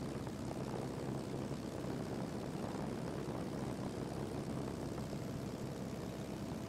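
Light propeller plane's engine droning steadily, heard from inside the cabin.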